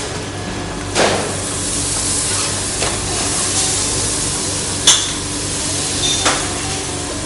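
Butter sizzling as it melts in a hot frying pan, a steady hiss. Several metal clanks of pan and utensils cut through it: a loud one about a second in, a sharp ringing one near five seconds, and softer ones between.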